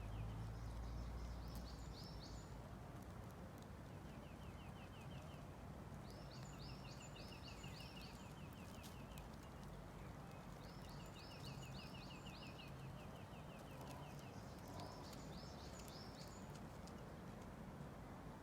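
A songbird singing the same phrase again and again, about every four to five seconds: a fast trill of many short notes with a few high, looping notes above it, over a steady low rush of background noise.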